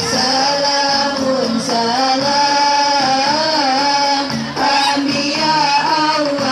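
Music: a melody sung in long, wavering notes over a steady high jingle, with a short dip about four and a half seconds in.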